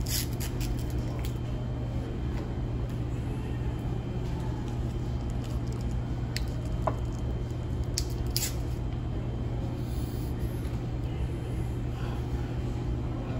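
Steady low hum of restaurant room noise, with a few light clicks and clinks near the start and again about six and eight seconds in.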